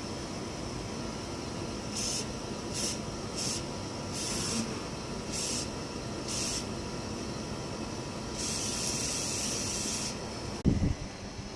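Repeated short hissing spray bursts, six in a few seconds and then one longer spray of about two seconds, over the steady whoosh of a running air conditioner; a thump comes near the end.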